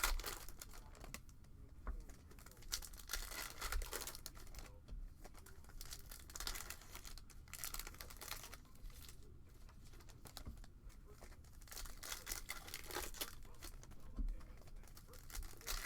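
Trading-card pack wrappers being torn open and crinkled by hand as a box of basketball card packs is opened, with irregular rustling and tearing throughout.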